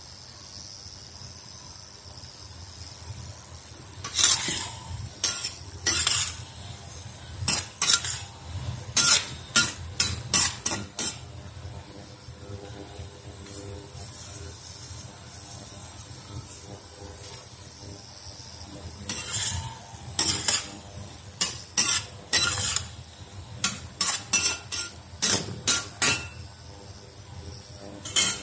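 A spatula stirring and scraping against a stainless steel wok while sliced celtuce and scrambled egg stir-fry with a steady sizzle. The strokes come in two runs of quick, sharp knocks, with only the sizzle between them.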